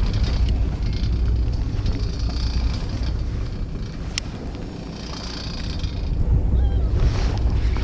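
Wind buffeting the microphone over a steady low rumble on a boat at sea, with one sharp click about four seconds in.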